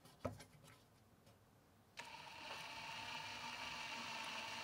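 Hand-held power drill starting about two seconds in and running steadily with a whine as it drills through the head of a rivet; a couple of light clicks come just before, as the bit is set on the rivet.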